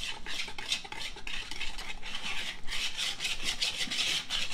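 Flat wire whisk beating a thin batter of flour, sugar and milk in a plastic bowl: a quick, rhythmic run of scraping strokes of wire against the bowl.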